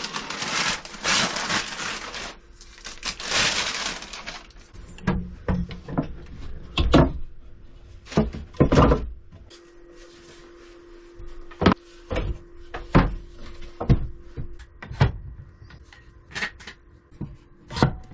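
Rustling and crinkling for about four seconds, then a dozen or so scattered knocks and clunks as the cured epoxy-and-wood board and its mold are handled. A faint steady hum runs through the middle.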